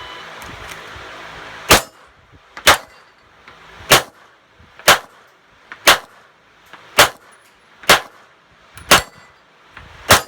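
Glock 17 9mm pistol firing a timed string of nine shots, roughly one a second, with steel plate targets clanging.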